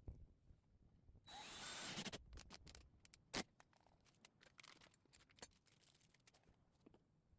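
Tools and small metal hardware being handled: a short rasping burst, then scattered clicks and clinks, with one sharp knock about three and a half seconds in.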